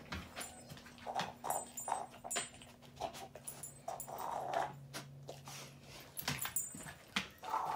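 A large dog's claws clicking on a hardwood floor as it moves about, with short bursts of sniffing as it noses at plastic measuring cups, searching for a hidden treat by scent.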